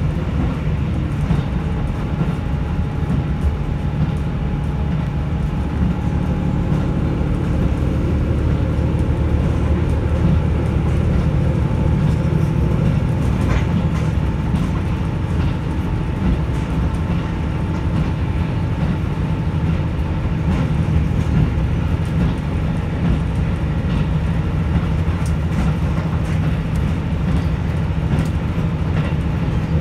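KiHa 75 diesel railcar running steadily, heard from inside the carriage: a continuous engine and transmission drone with wheel-on-rail noise.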